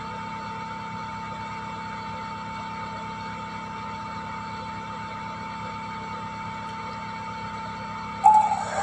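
Small electric centrifugal blower fan running steadily with a constant whine, blowing air over a phone circuit board to cool it after desoldering. A louder sound breaks in near the end.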